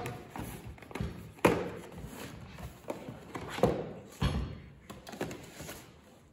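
Cardboard packaging rustling as a retail box is opened and a plastic pet water bowl is lifted out and set down on a table, with several knocks and thumps, the sharpest about a second and a half in.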